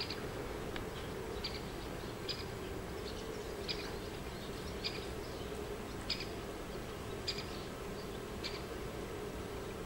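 Short, high chirps repeating about every second and a quarter, over a steady low hum.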